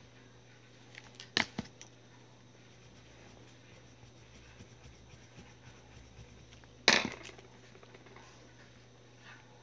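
Hard plastic pen and pencil knocking on a wooden desk as they are put down and picked up: a few quick clicks about a second and a half in, and one louder knock near seven seconds. Faint scratching of writing on paper between them.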